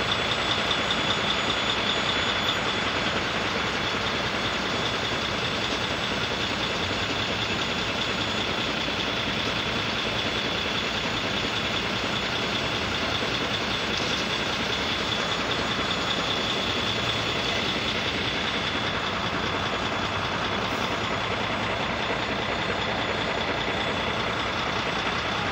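A level-crossing warning signal ringing continuously in a fast, even pulse, over a steady rumble of road vehicles idling at the closed crossing.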